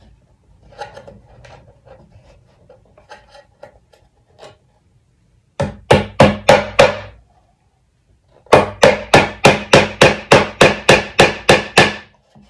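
Claw hammer driving a nail into the wooden wall of a birdhouse. Faint light taps and handling at first, then a quick run of about five blows a little past halfway, and after a short pause a steady run of about fourteen blows, roughly four a second.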